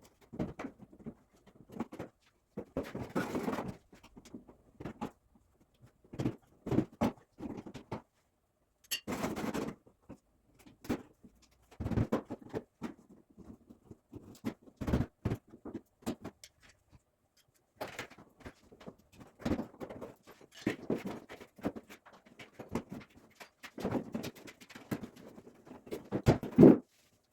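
Hand tools and engine parts clinking, knocking and rattling in irregular bursts, with short pauses between.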